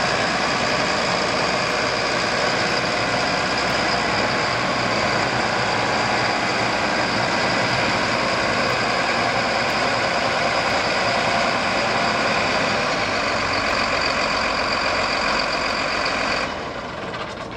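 Case MX250 Magnum tractor's six-cylinder diesel engine running steadily, with a high whine over the engine noise. Near the end the sound drops in level and then cuts off.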